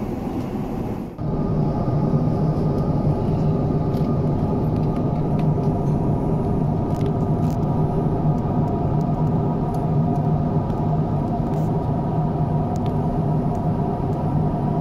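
Airbus A350-900 cabin noise in flight: a steady roar of airflow and engines with a low drone under it.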